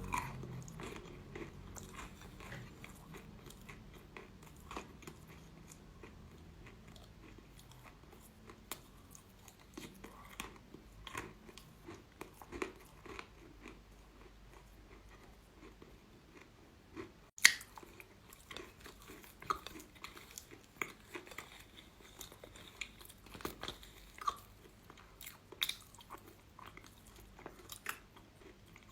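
A person biting and chewing crunchy chalk, with irregular crisp crunches and snaps. One much louder sharp bite comes about seventeen seconds in.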